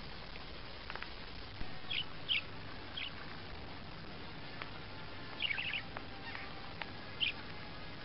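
A white budgerigar giving short, high chirps: a few single ones, then a quick run of several about halfway through, and one more near the end, over a steady faint hiss.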